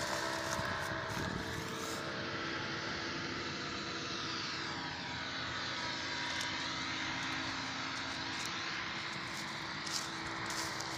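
Powered paraglider's (paramotor's) engine and propeller droning steadily as it flies past over the field.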